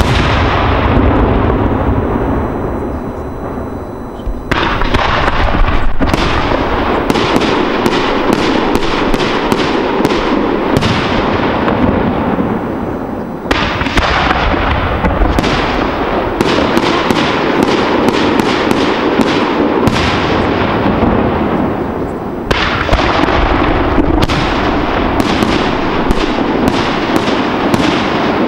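Fireworks display: a shell bursts with a heavy bang at the start, then rapid runs of sharp bangs and cracks from aerial shells and salutes follow, a few a second. The runs break off briefly about halfway through and again about three quarters of the way through.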